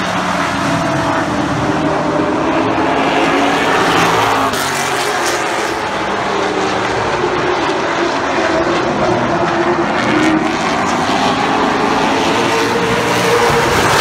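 A pack of stock cars racing around a short oval at full throttle. Several engines run at once, their pitches rising and falling as the cars come past and go away.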